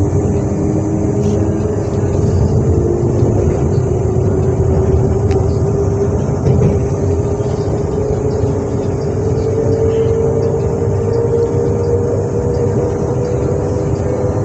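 Z2N electric multiple unit (motor car Z 20851) running under power: a steady rumble with a whine of a few tones that rise slowly in pitch as the train gathers speed.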